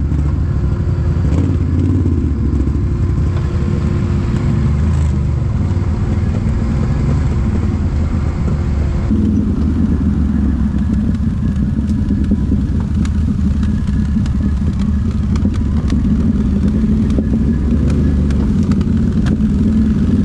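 Quad ATV engine running continuously while riding a forest trail; its note shifts abruptly about nine seconds in. Scattered sharp clicks and rattles in the second half.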